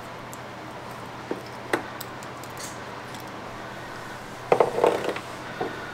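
Small clicks and rustles of hands handling wire ends and small wiring parts while twisting a wire splice, with a brief cluster of louder clicks about four and a half seconds in, over a faint steady hum.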